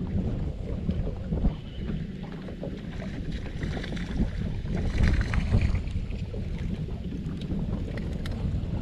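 Wind buffeting the microphone as a low, uneven rumble, with a louder rush about halfway through.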